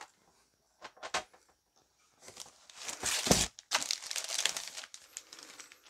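Packaging crinkling and rustling as a CGC-graded comic slab is unwrapped from its shipping packing, with a couple of light clicks about a second in and a dull thump midway.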